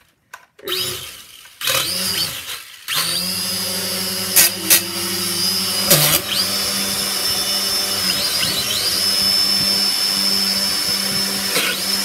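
Small toy quadcopter drone's electric motors and propellers whirring while it is held in the hand. It starts in a few short spurts, then runs steadily with a high whine that briefly dips in pitch and recovers. A few sharp clicks come around four to six seconds in.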